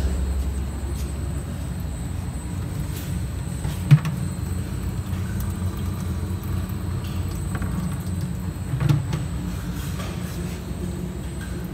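Electric motor running with a steady low hum. Two brief thumps, one about four seconds in and another about nine seconds in.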